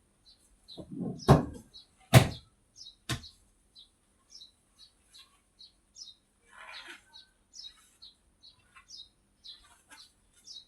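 A bird chirping over and over, short high notes about twice a second. Three loud sharp knocks about a second apart, between one and three seconds in, are the loudest sounds, followed later by a brief rustle.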